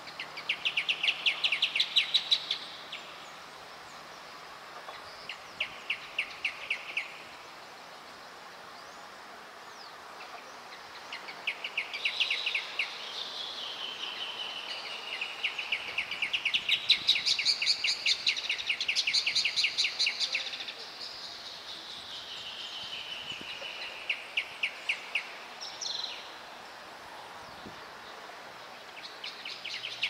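A pair of rufous horneros singing a duet: loud bouts of fast, evenly repeated notes lasting a few seconds each. In the middle the two birds' series overlap for several seconds, one voice pitched higher than the other, and there are shorter bouts near the end.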